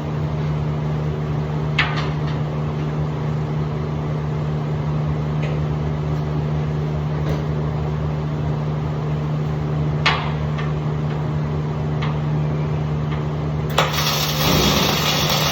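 A machine hums steadily, with a few sharp knocks. About fourteen seconds in, a harsh hissing noise starts abruptly.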